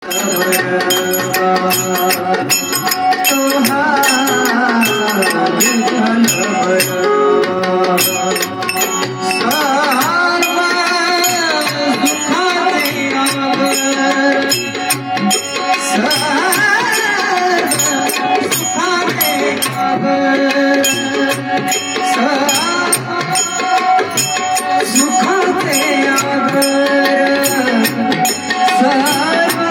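A male devotional singer performs a Marathi bhajan in a melodic, gliding voice, accompanied by a harmonium holding sustained notes and a tabla playing a steady, dense rhythm.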